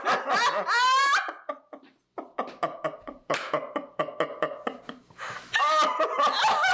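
A woman and a man laughing hard together: choppy, rapid bursts of laughter, with high squealing rises about a second in and again near the end.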